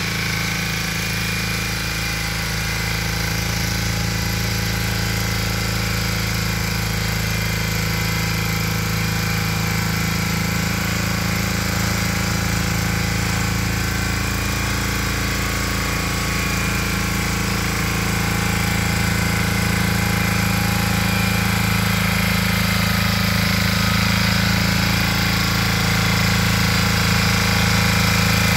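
Valpadana motocultivator's Lombardini 8 hp, 359 cc engine running steadily as the tiller works the soil. It grows somewhat louder in the second half as the machine comes closer.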